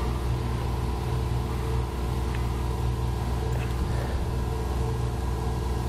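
Steady low mechanical hum with a few fixed tones, unchanging throughout, with a couple of faint ticks partway through.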